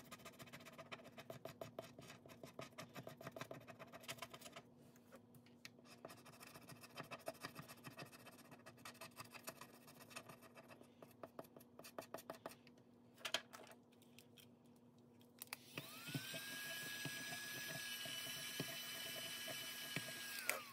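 Rapid scratching strokes on a scratch-off challenge card, in several runs with short pauses. About 16 seconds in, a small electric motor spins up and whirs at a steady high pitch for about five seconds, then stops.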